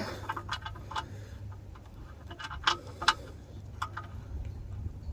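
Light, irregular metallic clicks and taps as the oil drain plug, fitted with its washer, is started and threaded by hand into the oil pan, over a low steady hum.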